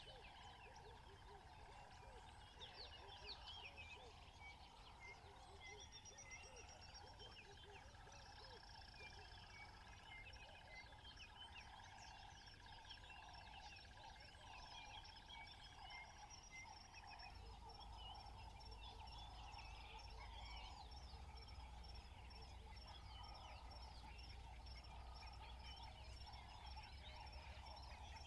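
Faint natural ambience: many birds chirping and calling over one another, with a steady high trill running beneath them.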